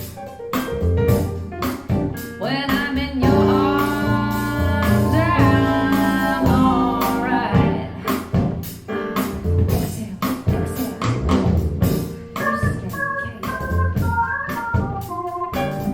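Music played back through KEF LS50 bookshelf speakers: a track with a steady drum beat under sustained organ-like chords and a melody line.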